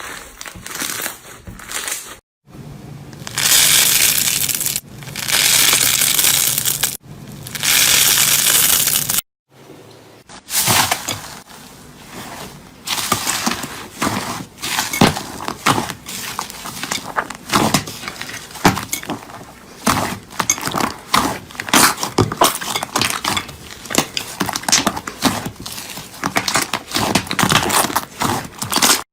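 Slime being pressed and squeezed by hand, giving crisp crackling and popping. Several short clips are cut together: first a dense, steady crackle, then from about ten seconds in a long run of sharp, irregular pops.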